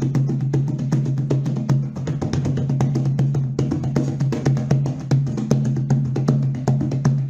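Music with a quick percussion beat over a steady low bass note.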